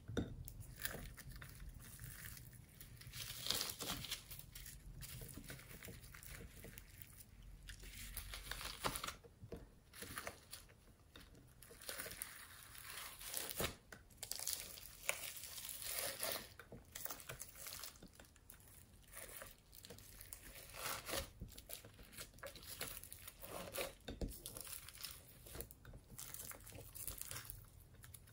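Hands squishing, stretching and folding glossy slime packed with foam beads in a glass dish: an irregular sticky crackling and crunching, with many short sharp clicks.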